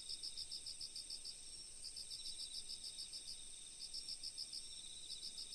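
Faint crickets chirping in quick trains of pulses, each train under a second long with short gaps between, over a steady high, thin insect trill: a night-insect background ambience.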